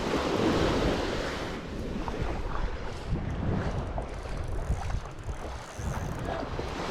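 Surf washing onto the beach, with wind buffeting the microphone in uneven low rumbles.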